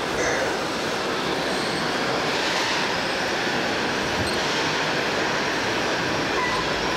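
Steady mechanical din of radio-controlled model trucks and construction machines running, with no single sound standing out.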